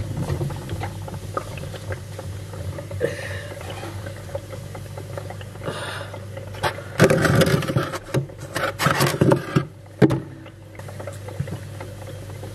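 A steady low mechanical hum, with a cluster of louder noisy handling sounds about seven to nine and a half seconds in.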